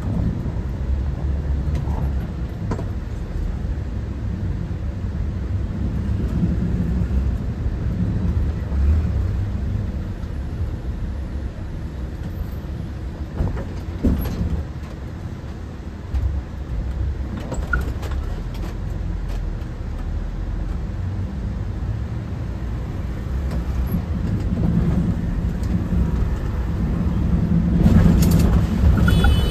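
A bus running on the road: a steady low rumble of engine and road noise with a few short knocks and rattles, getting louder near the end.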